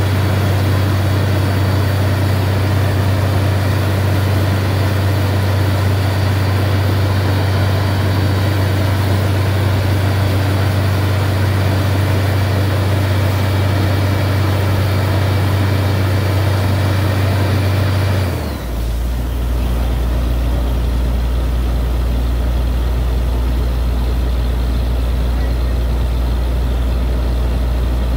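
Heavy engine of a borewell drilling rig running steadily with a strong low hum. About eighteen seconds in it drops suddenly to a deeper, slower hum and the hiss above it fades.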